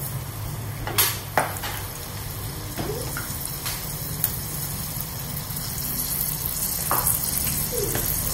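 Batter-coated prawns deep-frying in hot oil with a steady sizzle. A few sharp clicks come through it, two close together about a second in and more near the middle and end, over a low steady hum.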